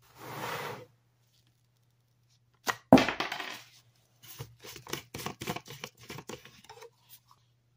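Plastic screw cap on a jug of Ajax liquid laundry detergent twisted open by a gloved hand: a sharp crack about three seconds in as the cap breaks loose, then a run of irregular plastic clicks and creaks as it unscrews. A brief rustle at the start.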